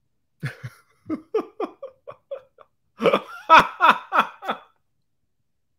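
A man laughing. A run of short laughs starts about half a second in and trails off. A louder burst of laughter comes about three seconds in and stops before the end.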